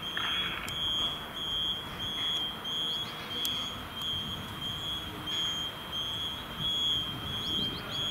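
Fire station alarm signal: a high electronic beep repeating about twice a second, calling the crews out on an emergency. Faint bird chirps near the end.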